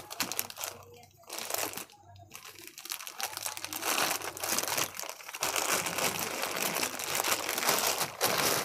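Thin clear plastic bag crinkling as hands handle it and pull it off a large casserole dish. It comes in short spells with pauses at first, then crinkles steadily from about three seconds in.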